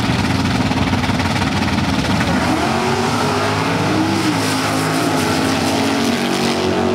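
Classic drag cars' engines rumbling loudly at the start line, then rising in pitch from about two seconds in as the cars accelerate away down the strip.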